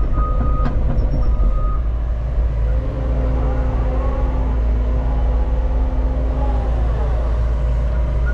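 Diesel engine of a heavy earthmoving machine running steadily under load while packing dirt, a deep continuous rumble. A short high steady tone sounds twice in the first two seconds.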